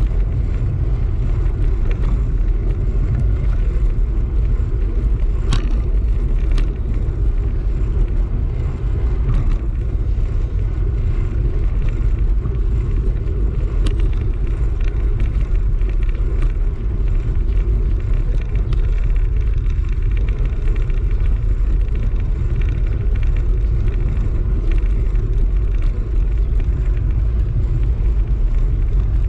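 Steady low wind rumble buffeting the camera microphone, with tyre noise on a concrete road, while riding at speed. A few faint clicks break through briefly, about five, six and a half, and fourteen seconds in.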